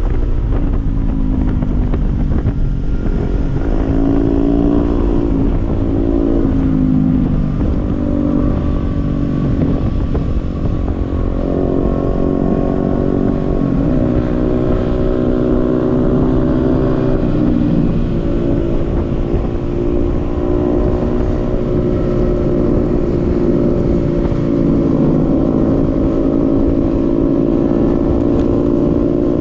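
Several Honda Grom mini motorcycles running together, their small single-cylinder engines overlapping and rising and falling in pitch as the riders accelerate and ease off.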